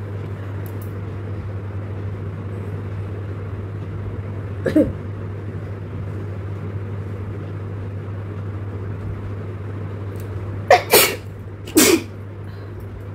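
A person sneezing three times in quick succession near the end, after a short vocal sound about halfway through. The sneezes are set off by a long grass stalk tickling the inside of the nose. A steady low hum runs underneath.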